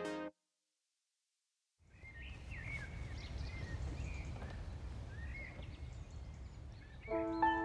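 Birds chirping a few times over low, steady outdoor background noise, starting after a moment of silence. Electronic music cuts out at the start and comes back in near the end.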